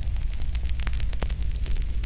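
Wood fire burning in a fireplace: a steady low rumble of flames with frequent irregular crackles and small pops from the burning logs.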